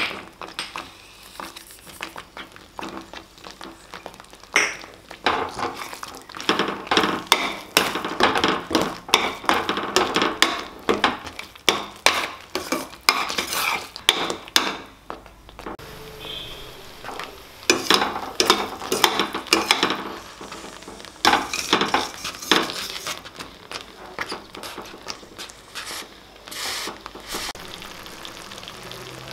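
Long steel spoon stirring and scraping thick tomato pickle paste around a stainless steel kadai, with irregular clinks of the spoon against the pan, busiest through the middle stretch.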